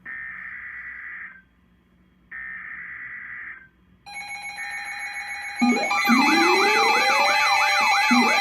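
Emergency Alert System header and alarm: bursts of screechy EAS data tones, each about a second and a half long, then steady alert tones about four seconds in. Near six seconds loud sirens join in: a slow rising wail and a fast warbling siren over the tones.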